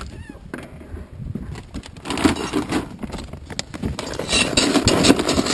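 A container scooping dry cat food from a large woven sack: the bag rustles and the kibble scrapes and rattles, busiest in the second half.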